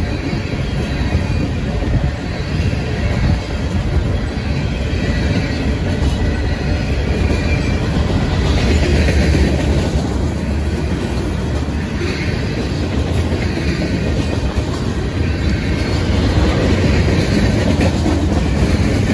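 Freight train of boxcars, refrigerator cars and tank cars rolling steadily past close by: a continuous rumble and clatter of steel wheels on the rails, with a faint high wheel squeal now and then.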